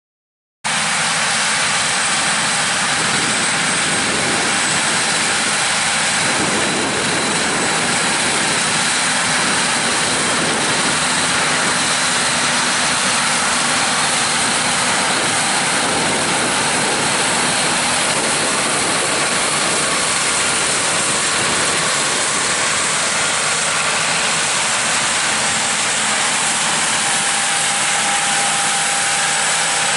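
Heavy harvest machinery running steadily in a soybean field: loud, even engine and rushing noise with faint steady tones. It starts abruptly about half a second in.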